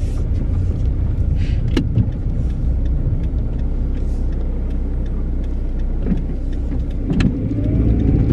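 Car interior while driving: steady low engine and road rumble with a few light knocks, and a rising whine near the end as the car picks up speed.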